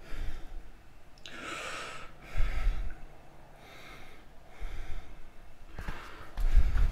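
A hand rubbing seasoning into a raw pork roast, soft rubbing and shaking noises that come and go about once a second as garlic powder is shaken over it, with a couple of dull knocks on the wooden board.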